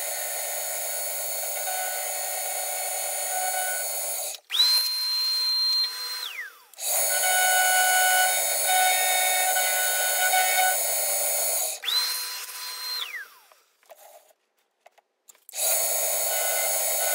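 Milling machine end mill cutting into an aluminium motorcycle crankcase, a steady mechanical noise with several high steady tones. It breaks off sharply a few times; twice a high whine holds and then glides down, and near the end there is a brief quiet gap with a few clicks before the cutting noise returns.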